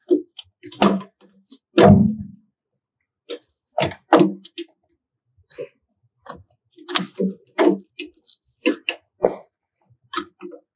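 Cardboard paper core being fitted into the take-up holder of a DTF printer: a scatter of short knocks and clicks, with a heavier thump about two seconds in.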